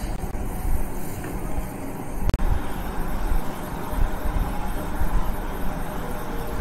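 Steady low background rumble with a light hiss, no voice, and a single brief click a little over two seconds in.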